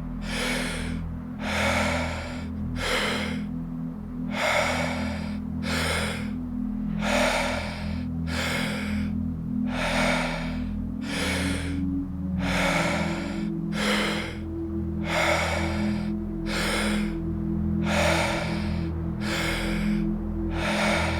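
Wim Hof Method power breathing: deep, forceful breaths through the mouth, in and out in a quick, even rhythm, pacing the 40-breath round. Under it a steady, low ambient music drone.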